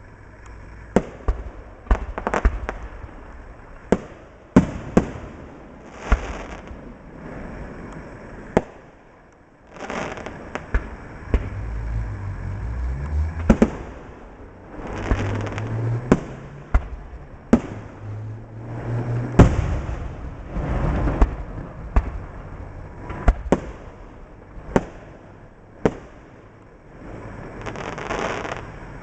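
Aerial fireworks going off: a string of sharp bangs at irregular intervals, some one after another, with crackling swells lasting a second or two between them.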